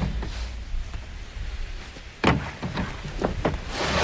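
A sharp knock about two seconds in, followed by a few lighter knocks and a brief rustle near the end, over a low steady rumble.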